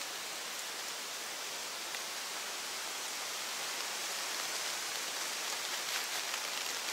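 Steady outdoor forest ambience: an even hiss, with a few faint ticks about six seconds in.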